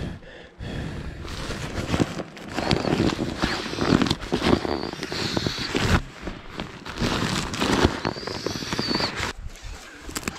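Camping gear being handled while pitching camp: crinkling, rustling fabric with many irregular knocks and clicks, and a few brief squeaks.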